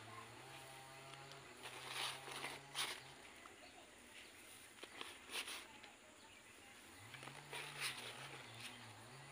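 A hand scooping and raking loose potting medium from a pile, making short grainy rustles about two, three, five and eight seconds in, over a faint steady low hum.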